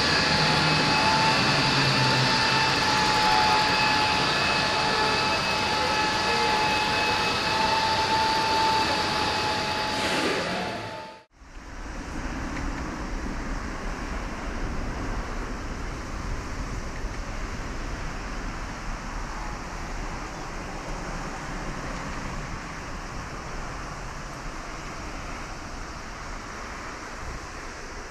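A steady, loud turbine whine with several high held tones near the parked Boeing 777, cut off about 11 seconds in. Then the even rush and low rumble of the 777-300ER's GE90-115B jet engines at taxi power, fading slightly.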